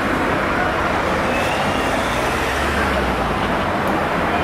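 Steady rumble of motor vehicle engines and traffic noise in the street.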